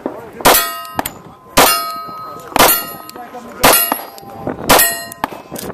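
Five shots from a Gen 4 Glock 41 .45 ACP pistol, fired about a second apart, each followed by the ring of a steel target being hit.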